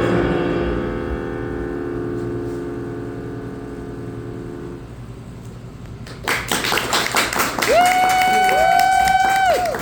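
A final held chord rings and fades out over about five seconds. After a short lull an audience breaks into applause, with two people cheering a long 'woo' over the clapping.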